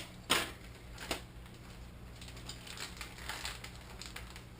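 Packaging being handled: irregular crinkles and clicks of plastic wrapping and tape around a model glider's rudder, the loudest about a third of a second in.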